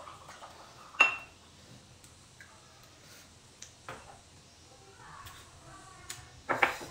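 Glass clinks and knocks at a table: a sharp, ringing clink about a second in as a small glass bottle touches a drinking glass, a softer knock near four seconds, and a couple of knocks near the end as the glass is set down on the table.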